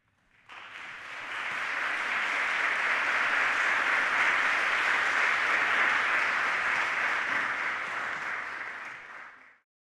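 Audience applauding, building up over the first couple of seconds and fading away near the end.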